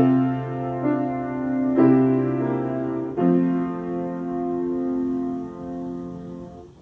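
Piano prelude closing: slow chords struck at the start, about two seconds in and about three seconds in, the last chord held and dying away near the end.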